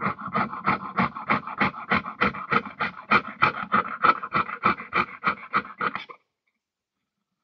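Jeweller's piercing saw cutting through sheet metal in regular back-and-forth strokes, about three a second, stopping suddenly about six seconds in.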